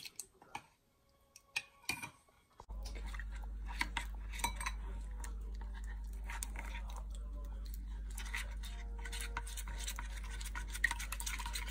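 Metal spoon stirring and scraping thick batter in a glass bowl, with many short clicks and scrapes. A steady low hum comes in suddenly a little under three seconds in and is the loudest sound.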